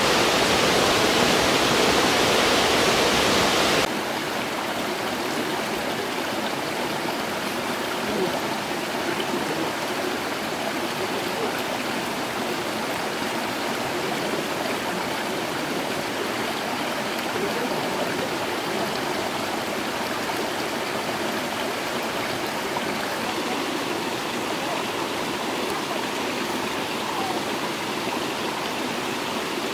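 Stream water rushing steadily. It is louder for the first four seconds, then drops suddenly to a softer, even rush.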